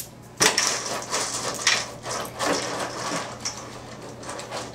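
Dry dog kibble clattering and rattling in a bowl as a toddler's hands grab and scoop at it, with a sharp clack about half a second in and irregular rattles after it.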